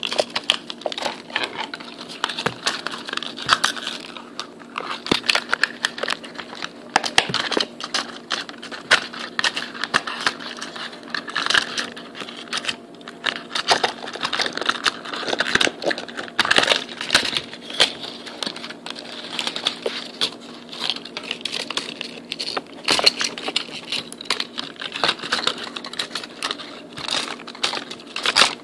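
Irregular rustling, crinkling and clicking as a cardboard toy box and its paper insert are handled close to the microphone, with a faint steady hum underneath.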